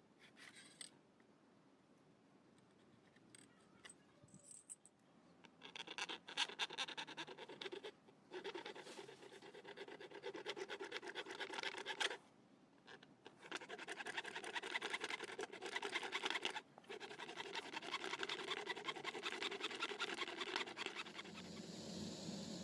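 Rapid scratchy scraping or rasping from hand work on material, in four runs of two to four seconds with short pauses between them, starting about six seconds in.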